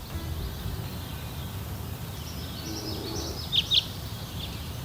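Outdoor ambience: a steady low background hum with birds chirping, including two short, loud high chirps about three and a half seconds in.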